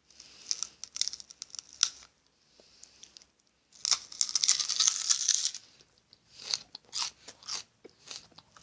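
Raw whole onion being bitten into and chewed close to the microphone: crisp, wet crunches, with the longest, loudest crunching bite about four seconds in and sparser chewing crunches after it.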